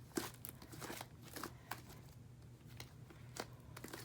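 Hands kneading sticky fluffy slime made of glue, shaving cream and Tide activator, giving faint, irregular crackles and clicks as it pulls and folds; the slime is still a little sticky, not yet fully set.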